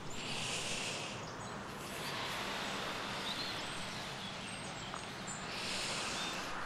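Quiet outdoor ambience: a steady faint hiss with a few faint bird chirps. Two brief soft hissing sounds stand out, one near the start and one near the end.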